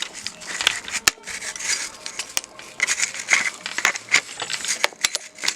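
A BMX bike being cleaned by hand: irregular rubbing and scrubbing against the frame, with scattered small clicks and knocks.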